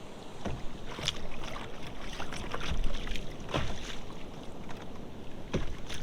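Irregular knocks and clicks of gear and a hooked fish being handled on a fishing kayak while the fish, which has swallowed the lure, is worked free. Wind and water noise run underneath.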